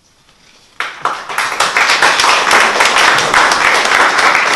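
Audience applause breaking out suddenly about a second in after a short hush, then dense, steady clapping from a small crowd.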